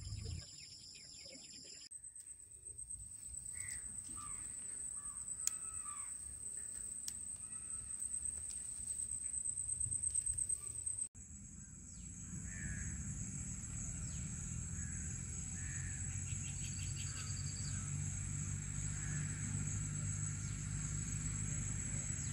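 Outdoor ambience: a steady high-pitched insect drone with birds calling now and then. The sound changes abruptly twice, and from about halfway a low rumble joins in.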